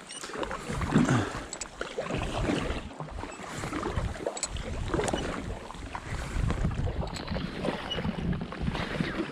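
Paddle strokes splashing and pulling through lake water from a packraft, a surge every second or so, with wind rumbling on the microphone.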